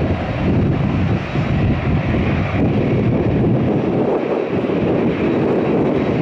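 Jet airliner engines as a plane passes: a loud, steady rush of noise with no clear pitch, its deepest rumble thinning about four seconds in.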